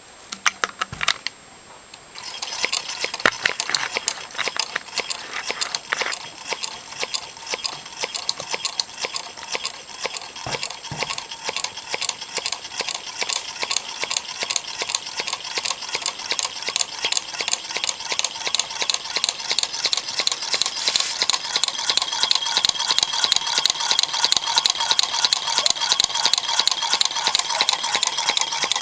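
Homemade tin-can Stirling engine running, heated by tea lights and cooled by water in its top can. Its metal linkage clicks in a fast, even rhythm with a metallic ring, starting about two seconds in and growing louder toward the end.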